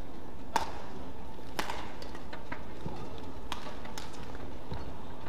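Badminton rackets striking a shuttlecock in a rally: sharp cracks about half a second in, at about one and a half seconds and at about three and a half seconds, with fainter taps between, over the steady hum of the hall.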